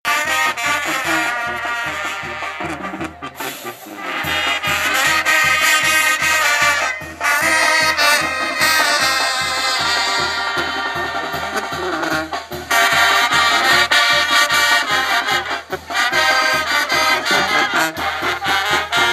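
Brass band music with trumpets and trombones over a steady bass beat, dipping briefly just before four seconds in.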